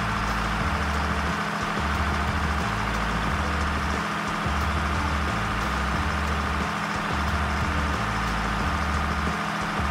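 Heavy truck engine sound effect, a steady running drone with a low pattern that repeats every few seconds, standing in for the toy SWAT truck driving.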